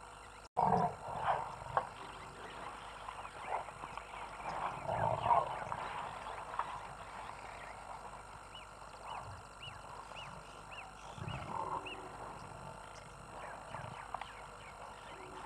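Irregular animal calls from wildlife, with a run of about seven short, high chirps near the middle.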